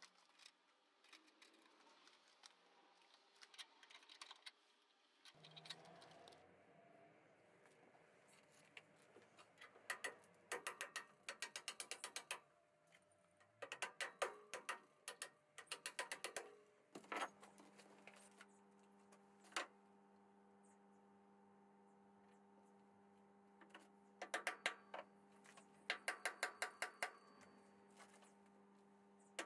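Small hammer tapping parts into the timing side of a 1953 BSA B31's aluminium crankcase, in quick runs of light, sharp taps several a second, with pauses between the runs.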